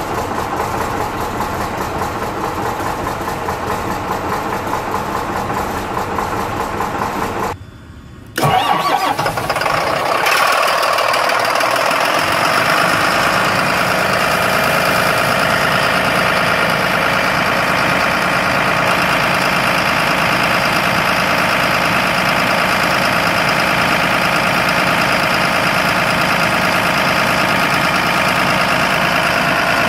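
A Leyland National bus's diesel engine idling, cut off after about seven seconds. Then a Mercedes MBE 900 diesel cranks and catches on a cold start, running unevenly for a few seconds before settling into a steady idle.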